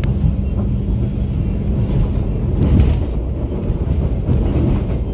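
Passenger train running along the track at about 58 km/h, heard inside the coach: a steady low rumble of wheels on rail with a few faint clicks.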